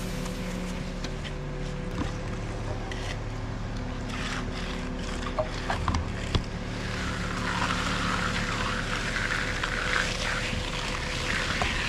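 An engine running steadily, with a few scattered knocks and clicks. About seven seconds in, a rushing hiss joins it.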